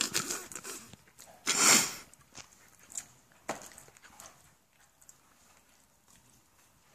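A person's short, hissing breath or snort about a second and a half in, followed by a few faint mouth clicks while chewing.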